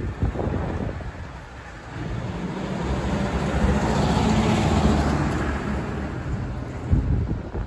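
Rear-loading garbage compactor truck driving past close by, its diesel engine growing louder to a peak about four to five seconds in, then fading as it pulls away. Wind buffets the microphone at the start and again near the end.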